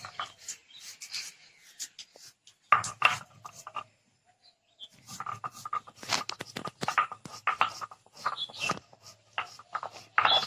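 Quick, irregular scraping and knocking strokes of hand food preparation, coming in clusters with a short pause about four seconds in.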